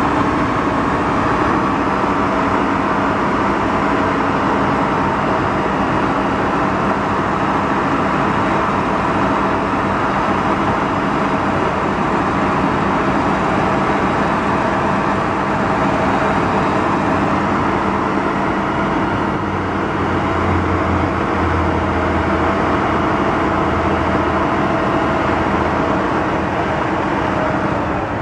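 Mack six-cylinder diesel engine of a 1977 Mack RS600L crane truck running steadily. A deeper low hum comes up for several seconds in the second half.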